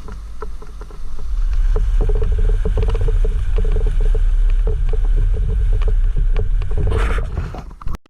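Jeep Wrangler JL Rubicon driving a rough off-road trail: a low rumble from the engine and drivetrain with frequent knocks and rattles. A steady hum runs under it from about two seconds in until near the end, and the sound cuts off suddenly at the end.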